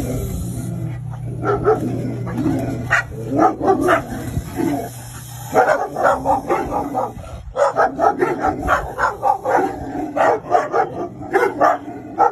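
A dog barking over and over in quick runs of short barks, starting about a second in, with a brief pause about halfway through.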